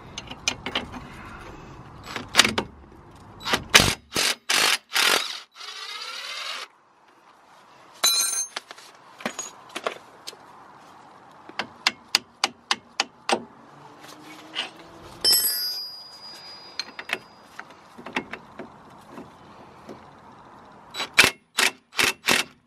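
Cordless DeWalt impact wrench hammering on a strut-to-hub bolt in short bursts, the first about four seconds in and another near the end. In between come metal clinks and hammer taps as the bolt is knocked out of the strut.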